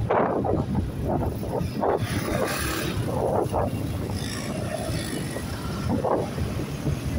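Wind buffeting the microphone of a moving motorcycle, over the steady rumble of the ride and the road, with irregular gusts.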